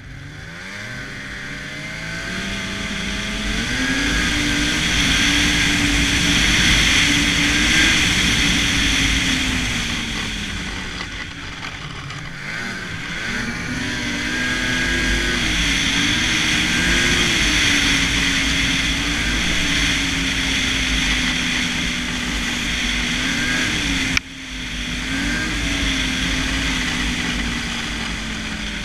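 Polaris Fusion snowmobile's two-stroke engine running under throttle on the move. It revs up from low at the start, eases off about halfway through, then pulls up again and sags a little near the end. A single sharp knock comes about four-fifths of the way through.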